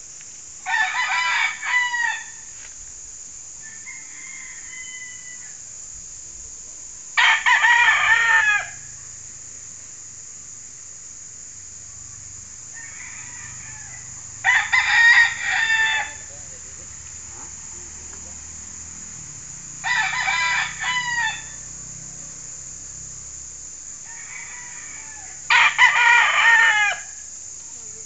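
Gamecock roosters crowing: five loud crows about every six seconds, each about a second and a half long. Fainter crows or calls from other birds come in between.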